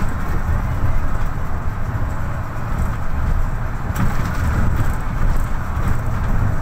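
Interior of a MAN NL263 low-floor city bus under way: steady diesel engine drone mixed with road and tyre noise. A brief click comes about four seconds in.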